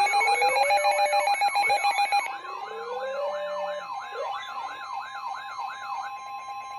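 Several electronic alert tones sounding over each other: a siren-like tone sweeping up and down about three times a second, over steady alarm tones and beeps. Some of the tones cut off about two seconds in, and the sweeping siren and one steady tone keep going.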